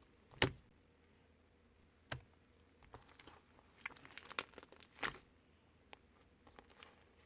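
Slime being pressed and stretched by hand, giving scattered sticky clicks and pops; the loudest come about half a second in and in a cluster around four to five seconds.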